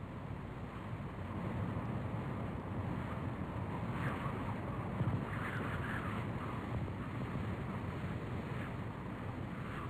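Wind buffeting a microphone: an irregular rumbling noise with no steady tone, a little stronger around the middle.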